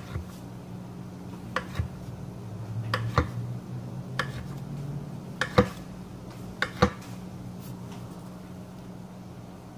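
A kitchen knife slicing through a log of rolled cinnamon-roll dough, the blade knocking against the granite countertop at the end of each cut. There are about six sharp knocks roughly a second apart, stopping about seven seconds in, over a steady low hum.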